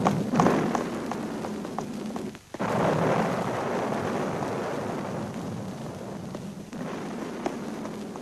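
A steady rushing noise on a film soundtrack with a few scattered sharp cracks. It breaks off for a moment about two and a half seconds in, then comes back louder and fades a little toward the end.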